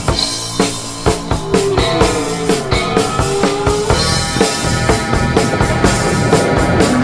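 Music soundtrack with a steady drum-kit beat, kick and snare hits about twice a second, under sustained instrument notes.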